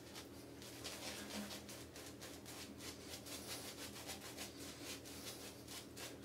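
Badger shaving brush rubbing Arko shave soap from the stick, then working lather onto the face: a faint, quick run of brush strokes, several a second.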